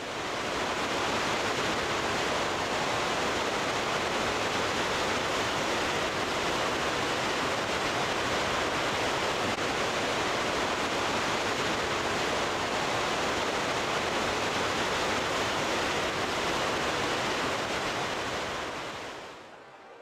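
Steady rush of running or falling water, fading in at the start and fading out near the end.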